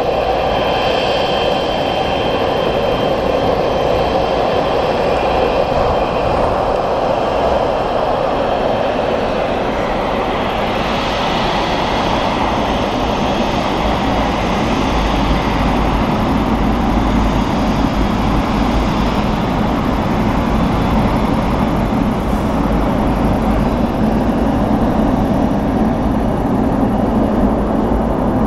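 Boeing 777F freighter's GE90 jet engines running at taxi power as it taxis past, a steady whine and rumble. A high tone fades after the first few seconds, and a lower rumble grows toward the end.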